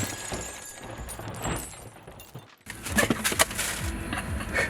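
A car crash: a breaking, shattering crash sound that dies away over about two seconds. After a sudden cut, a few sharp knocks and clatters follow.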